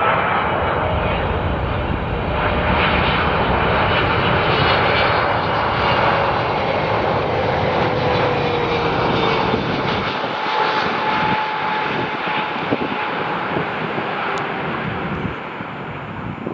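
Boeing 777 jet engines at approach power as the airliner flies past: steady jet noise with whining tones that slide lower in pitch as it goes by, then the noise fades near the end.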